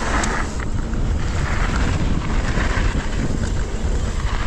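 Wind buffeting the microphone as a mountain bike rolls fast down the trail, with tyre noise and a few sharp clicks from the bike.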